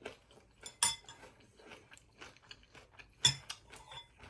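Fork clinking against a food tray or plate, with two sharp clicks about two and a half seconds apart and small taps between, over faint chewing.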